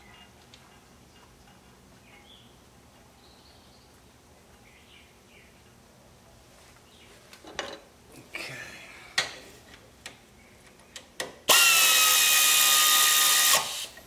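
A power drill spins for about two seconds near the end, running in the bolts of the balance chain tensioner guide on a 2.4 L Ecotec engine. Before it come a few light clicks and knocks from handling parts.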